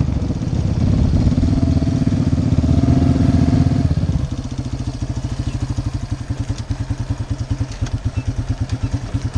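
Off-road vehicle engine running at raised revs, then dropping about four seconds in to a steady idle with a rapid, even putter.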